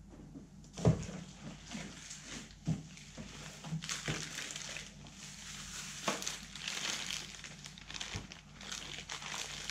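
Plastic packing material and a plastic bag rustling and crinkling as they are handled and pulled out of a cardboard box. A few knocks are mixed in, the loudest about a second in.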